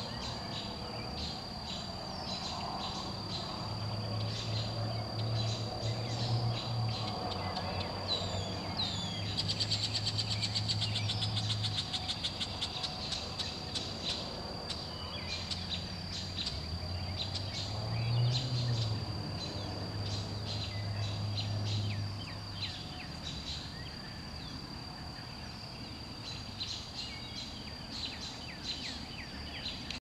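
Dusk outdoor ambience of birds chirping, many short calls with a fast high trill near the middle, over a steady high-pitched whine. A low steady hum comes in twice and fades.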